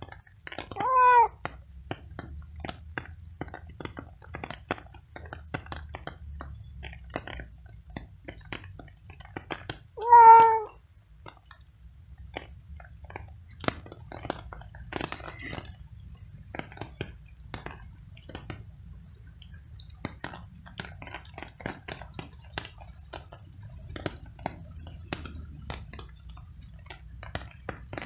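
Stray tabby cat meowing loudly twice, about a second in and again about ten seconds in, each call short and falling slightly at the end. Between the meows come quick soft clicks of the cat chewing pieces of cooked veal.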